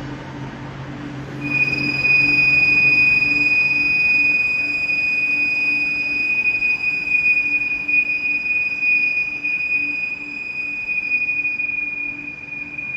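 Skoda WEA 200 CNC boring machine running, a low hum joined about a second and a half in by a steady high-pitched whine that holds on.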